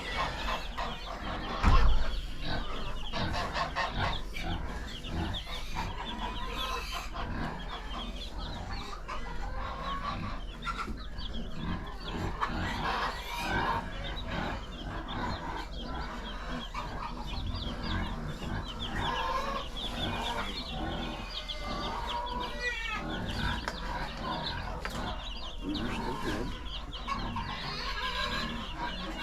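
A brooder full of two-day-old Cornish Cross meat chicks peeping continuously, many short high calls overlapping, with one thump about two seconds in.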